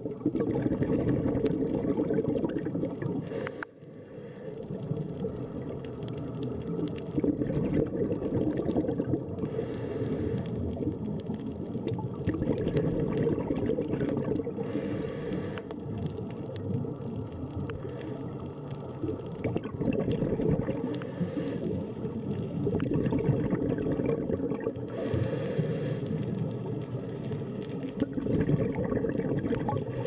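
Underwater bubble noise from scuba divers breathing out through their regulators: a rumbling, gurgling rush that swells every few seconds.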